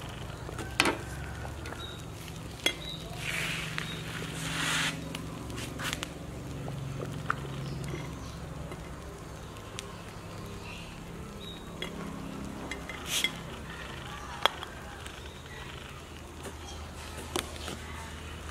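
A metal ladle stirring taro dessert in an aluminium cooking pot and ladling it out, with several sharp clinks as it strikes the pot, over a low steady hum.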